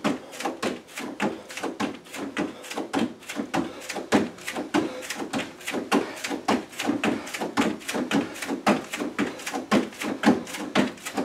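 Bare feet landing on an aerobic step platform and the floor in quick hop-and-switch foot changes: a steady, even run of short thuds, several a second.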